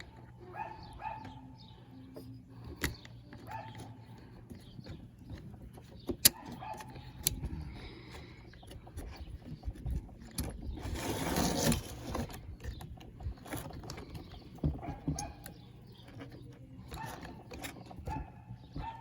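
Scattered clicks, taps and clatter of small metal and plastic parts being handled and fitted as a chainsaw's carburetor and fuel parts are reassembled. A hissing rush of about a second and a half comes midway.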